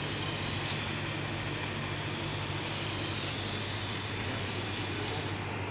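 A 1000 W robot laser welding machine running during a weld: a steady hiss over a low hum. The higher part of the hiss cuts out about five seconds in.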